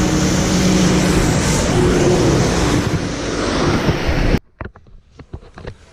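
Highway traffic noise: a passing motor vehicle's engine hum over loud road and tyre noise, cut off abruptly about four seconds in, leaving only faint clicks.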